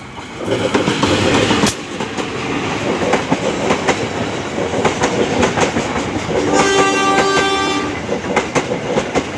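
Local passenger train hauled by a diesel locomotive passing close by. It is loudest as the locomotive goes past in the first couple of seconds, then the coaches' wheels click over the rail joints. A train horn sounds one steady chord for about a second and a half, about two-thirds of the way through.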